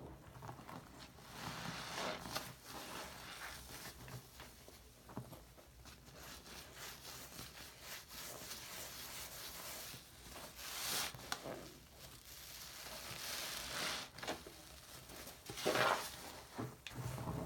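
Wet squishing and squelching of a foam bath sponge being squeezed and kneaded by hand in a basin of thick shaving-cream lather, in irregular squeezes, with a louder one about eleven seconds in and another near the end.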